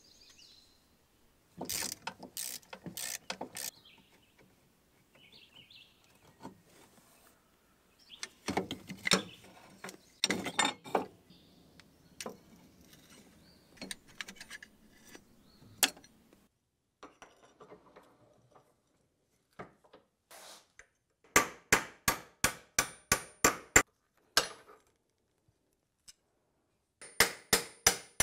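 Metal clinks and rattles as a seized excavator hand-throttle lever assembly is worked apart. Later comes a quick, even run of about ten sharp metal taps, around four a second, and a few more near the end: a hammer driving a pin punch through the assembly.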